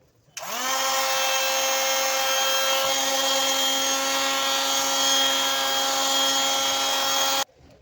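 A small electric motor switching on, spinning up quickly to a steady whine, then cutting off abruptly near the end.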